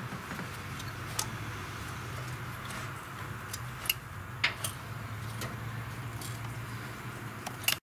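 Several light, sharp clicks spread over a few seconds, above a steady low hum: the Holley carburetor's choke linkage and butterfly being worked by hand. It is a check that the new automatic choke's hook and rod are connected right, shown by the butterfly opening and closing freely.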